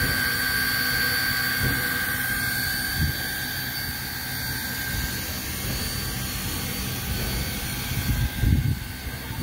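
Baldwin 2-6-6-2 articulated steam locomotive 1309 standing with steam up: a steady hiss with a high, even whine, the whine fading about halfway through. A few low thumps near the end.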